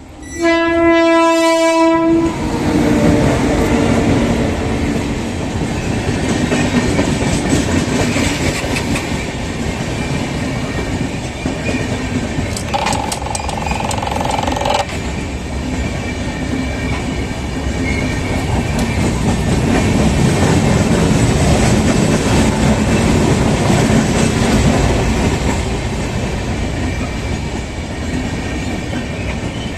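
A train horn blows for about two seconds at the start, then a train passes a level crossing with a steady rumble and wheel clatter of its cars. A short, steady high tone sounds about 13 seconds in.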